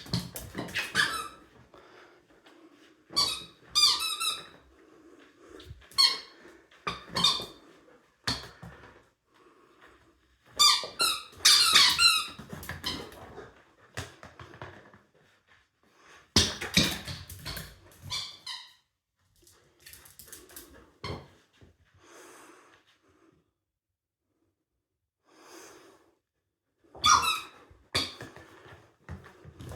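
A squeaky döner toy squeaking over and over in short clusters as a pet bites and chews on it, with quieter rustling in between.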